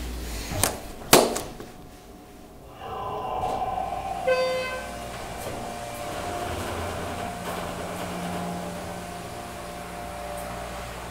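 Schindler elevator: the doors shut with two sharp knocks, then the car starts to run with a steady mechanical hum and whine. A short electronic tone sounds about four seconds in.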